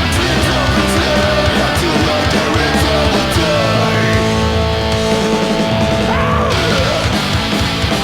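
Punk 'n' roll song played from a vinyl record: distorted electric guitars, bass and drums with a melody line bending in pitch in the middle. The cymbals drop out about six and a half seconds in.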